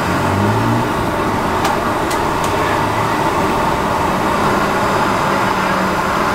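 Steady street noise of passing traffic with a low engine hum, and three short clicks about two seconds in.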